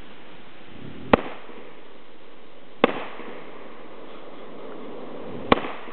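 AR-15 rifle firing three single shots, the second about a second and a half after the first and the third about two and a half seconds later, each a sharp crack with a brief echo.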